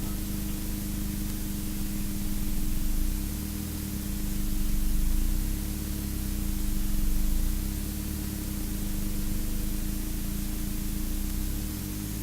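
Steady hiss with a low electrical hum, and a low rumble that swells and fades a few times.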